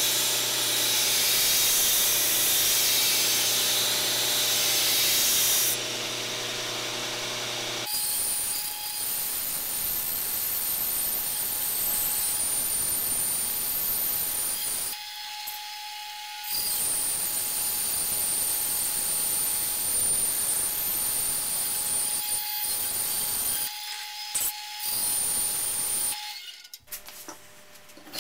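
A belt grinder grinds a steel axe head with a loud steady hiss. After a few seconds a band saw cuts a wooden axe-handle blank, running steadily with a constant whine and two short breaks.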